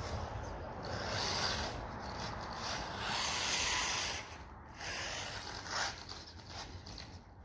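Electric RC car driving across concrete: a rushing of motor and tyres on the rough surface that swells twice as the car speeds up, then eases off.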